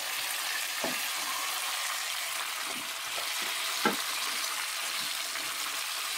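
Sliced potatoes sizzling in hot oil in a wok while a wooden spatula stirs and turns them, the spatula knocking against the pan a few times, most clearly about a second in and again near four seconds.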